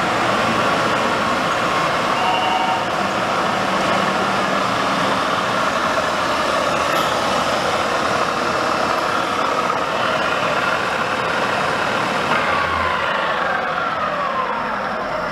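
WMW Niles DPS1 engine lathe running under power, a steady mechanical whine and drive noise from the machine. Near the end a whine falls in pitch.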